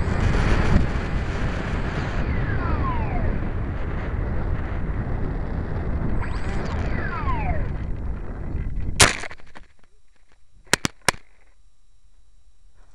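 Wind rushing over the camera on an RC Skysurfer glider in low flight, with a falling whine twice, then a single sharp thud as the model touches down in the grass about nine seconds in. After it, only a couple of small clicks.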